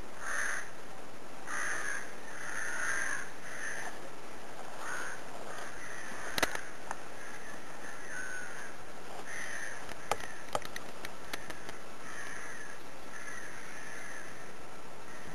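Crows cawing over and over, short harsh calls coming every second or so. A few sharp clicks stand out, one about six seconds in and a small cluster around ten seconds.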